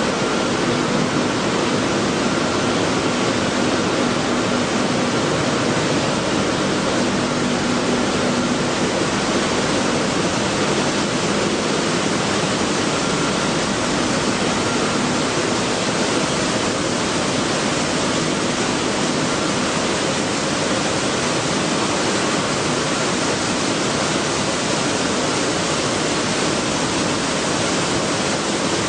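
Wheat flour mill machinery running: a steady, dense noise with a few faint constant hum tones in it.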